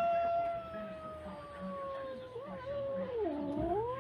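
A domestic cat's long, drawn-out yowl. The pitch slowly falls, dips low about three seconds in, and rises again near the end.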